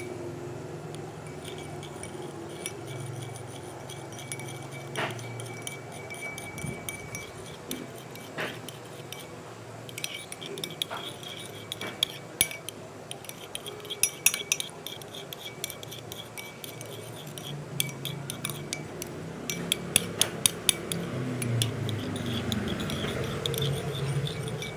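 Metal spoon stirring a thick slime mixture in a bowl, clinking and tapping irregularly against the bowl's sides, with clusters of quick clinks about halfway through and again near the end.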